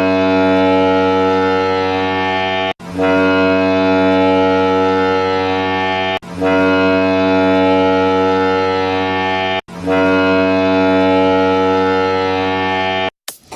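Hockey goal horn sounding four long blasts of about three seconds each, a deep steady tone with short breaks between them.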